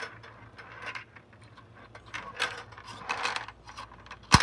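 Handheld plastic 'Under-n-Over' pinball toy being tilted and shaken: small plastic balls rattling and clicking inside the clear case in short irregular bursts, with one sharp click near the end.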